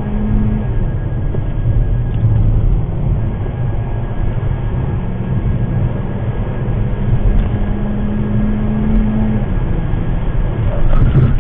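Steady rumble of engine and tyre noise inside a moving car, heard through a dashcam's microphone, with a low engine hum that rises slightly in pitch mid-way and drops away about two-thirds of the way through.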